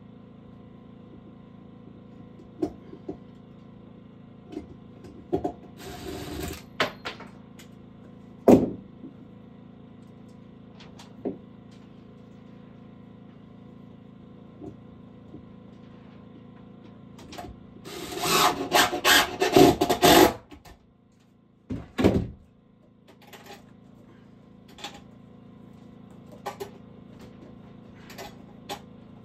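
Hand-tool woodwork: scattered knocks and taps, a sharp loud knock about eight seconds in, and a couple of seconds of quick scraping strokes a little past the middle, over a steady low hum.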